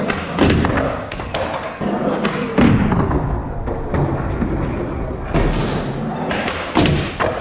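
Skateboard wheels rolling on a smooth concrete floor, broken by several hard thumps and clacks of the board hitting the ground, the loudest about half a second in, about two and a half seconds in, and near the end.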